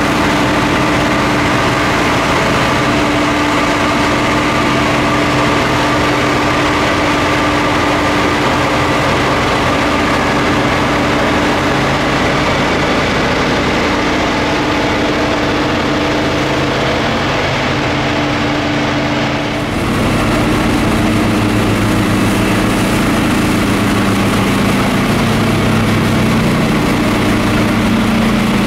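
Diesel engine of a subway snow-thrower work train running steadily with a heavy hum while it clears snow from the tracks. The engine note changes abruptly about twenty seconds in.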